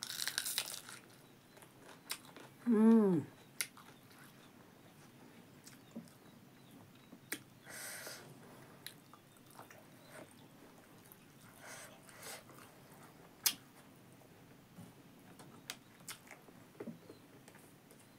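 Close-up eating sounds of a woman eating rice and buffalo meat by hand: a crunchy bite right at the start, then chewing with small lip smacks and clicks. About three seconds in, one short loud hum from her voice that falls in pitch.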